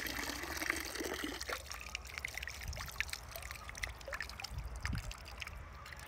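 Pond water dripping and trickling from a mesh scoop heaped with freshly harvested azolla as it is lifted out, the drops pattering back onto the water surface in many small, irregular splashes.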